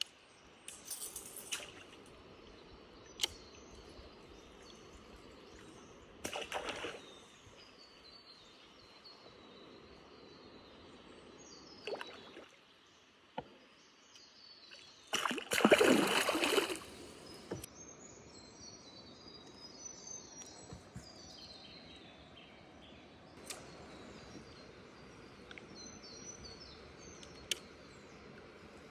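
Water splashing at the surface, topwater fishing for Eastern cod: a few short splashes and one longer, louder splash a little past halfway, with a few sharp clicks. Birds chirp steadily throughout.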